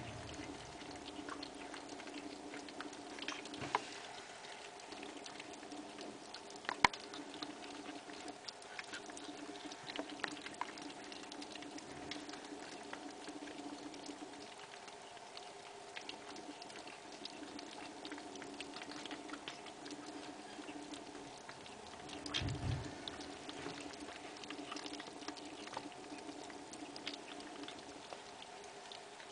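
Several kittens chewing a mix of moist food and dry kitten kibble: a dense run of small crunching and smacking clicks, with a few sharper clicks. There is a steady low hum underneath and a single low thump about three quarters of the way through.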